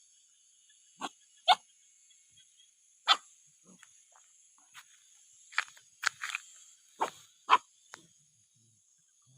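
Puppies giving short, sharp yips and barks, about nine in all, coming at uneven intervals.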